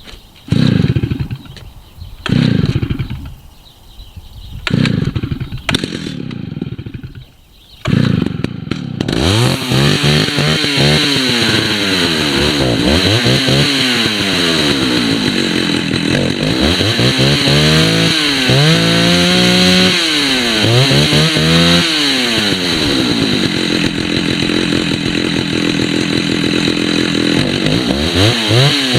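Vintage Stihl 076 two-stroke chainsaw being started. It fires in three short bursts that fall away, then catches about eight seconds in and runs, revved up and down over and over.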